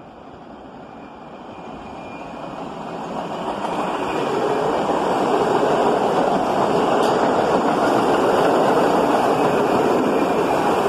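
R68A New York City Subway train approaching on the open-cut line and running past close by. The rumble of its wheels on the rails builds over the first five seconds, then holds loud and steady as the cars go by.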